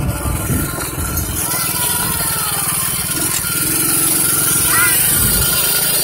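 Small motor vehicle's engine running steadily while riding, with wind rush over the microphone.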